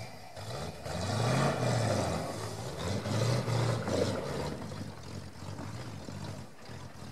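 Off-road truck's engine revving hard in snow, its pitch climbing and dropping a few times. It is loudest over the first four seconds, then eases off.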